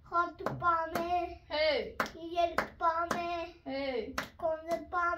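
Hands clapping a steady beat, about two claps a second, under a voice singing a simple song in short notes.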